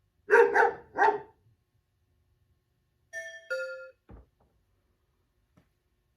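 A dog barking twice. About three seconds in comes a two-note ding-dong chime, the second note lower.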